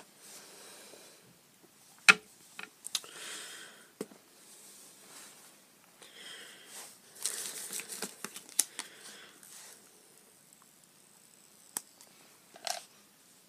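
Hands handling an iPhone box and its plastic accessory tray and contents: sharp clicks and taps, the loudest about two seconds in, between stretches of light rustling and scraping that are busiest between about six and nine seconds in.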